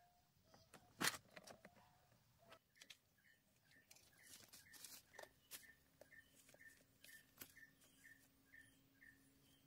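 Faint clicks and rustling from hands handling car wiring and dash trim, the sharpest a single click about a second in. From about four seconds in, a faint high chirp repeats about three times a second, joined later by a low steady hum.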